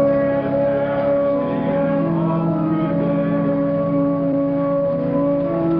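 Church organ playing slow, held chords that shift to new notes a few times.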